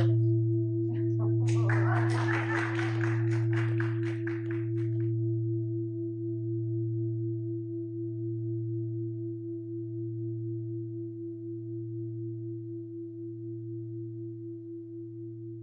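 A large singing bowl ringing out: a low hum with higher overtones, slowly fading with a gentle pulsing waver. A rustling clatter sounds over it for the first few seconds.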